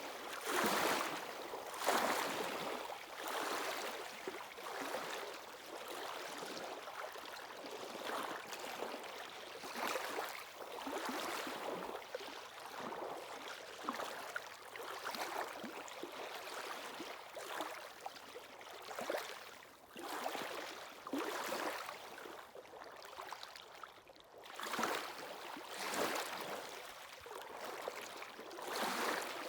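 Waves washing against the shore, a hissing surge of water every second or two with little deep rumble.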